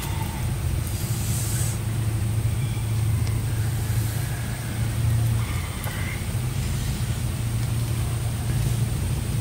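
Steady low hum with a thin, high-pitched steady whine above it, and a few faint short rustles.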